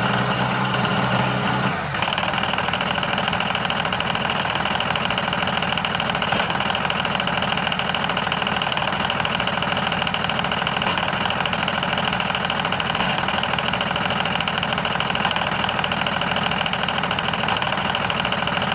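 A motor running steadily without a break; its tone shifts slightly about two seconds in.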